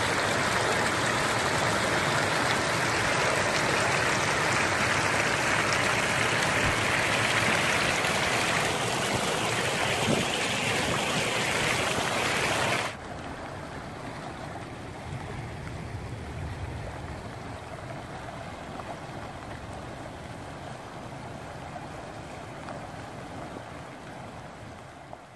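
Steady rushing of floodwater from a desert flash flood; about halfway through it drops suddenly to a quieter, steady rush.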